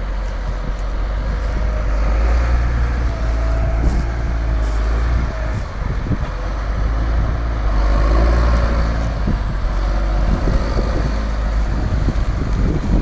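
Case 255 tractor's engine running steadily under load while pulling a plough, a strong low drone.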